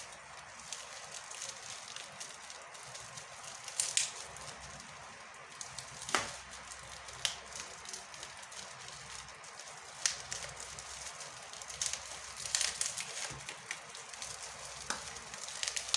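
Bubble wrap crinkling and crackling as hands pull and cut it away from a small box, with irregular sharp snaps every second or two.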